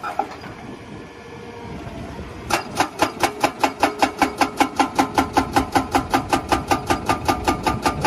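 Excavator-mounted hydraulic rock breaker hammering rock in a fast, even rhythm of about six blows a second, starting about two and a half seconds in. Before that, and under the blows, the excavator's engine runs steadily.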